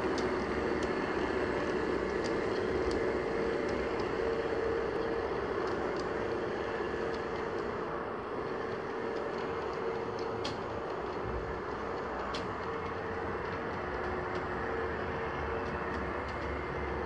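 G scale model Class 66 locomotive hauling a rake of ballast wagons along garden track: a steady running hum with the rumble of the wheels and scattered light clicks over the rail joints, a little quieter after about halfway as the train moves off.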